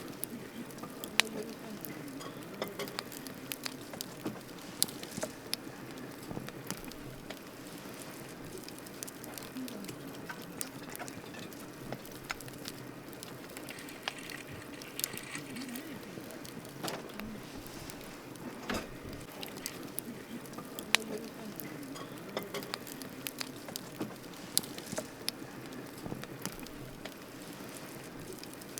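Wood campfire burning: steady crackling with irregular sharp pops, a few of them markedly louder.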